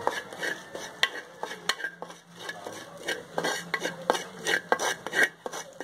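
Wooden spatula scraping and knocking around the bottom of an earthenware pot in quick, irregular strokes, stirring coriander and chilli powder as they dry-roast.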